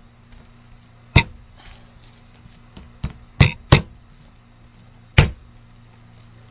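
Claw hammer tapping on a sheet of stainless-look peel-and-stick backsplash tiles held against a metal straight edge, working them along the cut line. Four sharp taps at uneven spacing, two of them in quick succession midway, with a lighter tick just before that pair.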